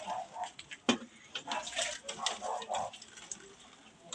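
Water poured from a plastic dipper splashing onto leafy plants in uneven splashes, with one sharp knock about a second in.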